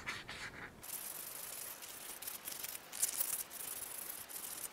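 Faint rubbing strokes of 600-grit sandpaper worked by hand around the inside of a Skoda brake caliper's cylinder bore, cleaning surface rust from the bore as it is refurbished.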